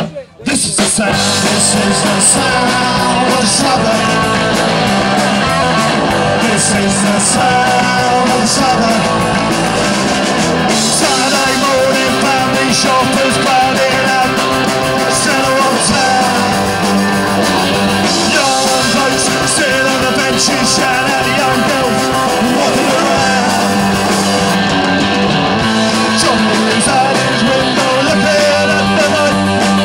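Live punk rock band playing an instrumental break, led by electric guitar. The sound cuts out for a fraction of a second just after the start, then the music carries on unbroken.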